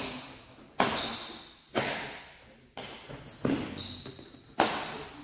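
Badminton rackets striking a shuttlecock in a doubles rally: five sharp smacks roughly a second apart, each echoing in a large hall.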